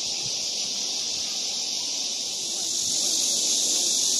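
Steady, high-pitched chorus of insects droning continuously over a summer grass field at dusk, growing a little louder about three seconds in.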